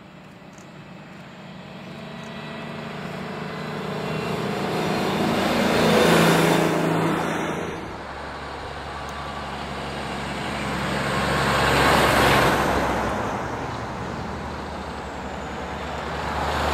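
Heavy vehicles driving past one after another: a bus swells up and passes about six seconds in, its engine note dropping as it goes by, then a truck passes about twelve seconds in, and a cabover truck is approaching near the end.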